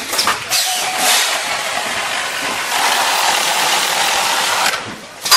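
Automatic carton sealing machine running, a steady mechanical hiss from its drive belts and taping head as a carton goes through, ending in a sharp clack.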